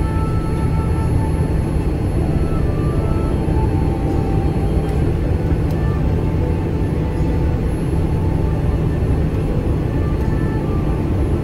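Steady cabin noise inside a Boeing 787-9 airliner: an even, loud rumble of engines and airflow.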